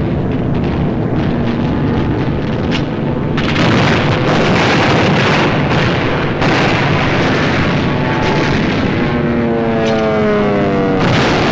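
Old film soundtrack of aircraft engines droning through heavy noise, with sudden loud blasts about three and six seconds in and a falling whine near the end.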